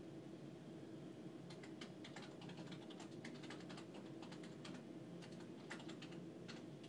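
Faint, rapid, irregular clicking and crinkling from small parts and plastic packaging being handled on a table, over a low steady room hum.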